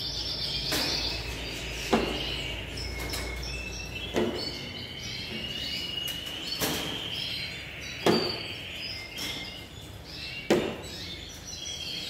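Yorkshire canaries chirping and trilling. Four sharp plastic clicks, a couple of seconds apart, as water drinkers are clipped onto the wire cage fronts.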